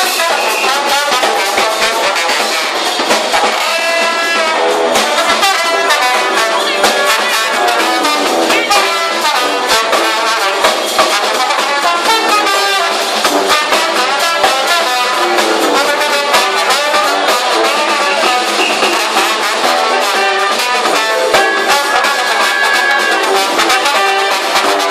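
Live brass band playing an upbeat number: tuba, trumpet, alto saxophone and trombone over a drum kit and hand drum.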